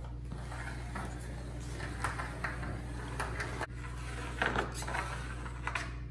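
A metal level being handled against plywood: scattered light knocks, clicks and rubs as it is set against the wall and slid along the floor, over a steady low hum.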